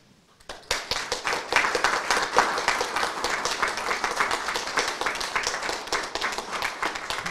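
Audience applauding, starting about half a second in.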